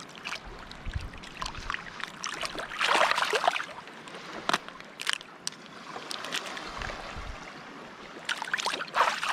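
Water sloshing and splashing with scattered sharp cracks and clicks as a cooked mud crab is cleaned in the water. Two louder splashy bursts stand out, about three seconds in and near the end.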